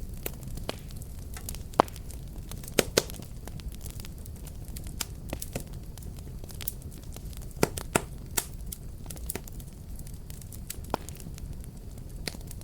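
Fire burning, crackling: irregular sharp pops and snaps over a steady low rumble, with a few louder pops near two, three and eight seconds in.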